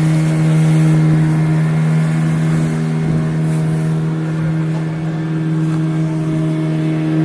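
Engine running at a steady speed, a constant low drone.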